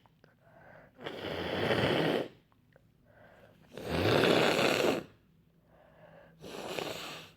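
A congested, cold-stuffed nose being blown three times, each blow about a second long.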